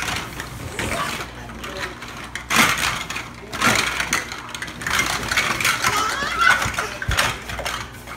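Hollow plastic ball-pit balls clattering and knocking together in irregular bursts as a toddler rummages through them.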